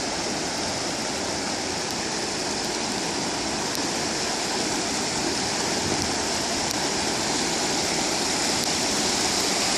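Mountain stream rushing steadily over its bed.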